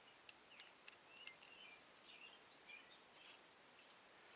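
Near silence: a few faint light clicks and some faint high chirps.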